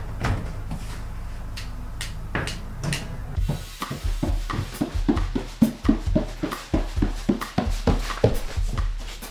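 A few scattered knocks and clicks, then a quick run of footsteps on wooden stairs, about three or four steps a second. Background music comes in at about three and a half seconds.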